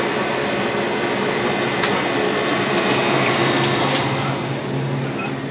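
Steady whirring machine noise of a commercial kitchen's equipment, with a low hum underneath and a few faint clicks.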